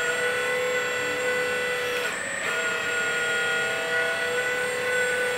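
Electric hydraulic pump of a 1/14 scale RC hydraulic excavator whining steadily while the tilting bucket is worked. The whine breaks off briefly about two seconds in and then picks up again at a slightly different pitch.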